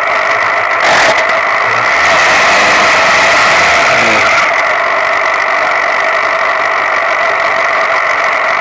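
Single-seater racing car's engine running steadily at a constant speed on the start line, heard from a camera mounted on the car, with a brief louder burst about a second in.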